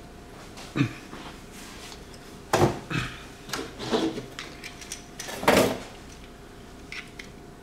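Handling noises: about five dull knocks and bumps at uneven intervals, with light rustling between them over a faint steady hum.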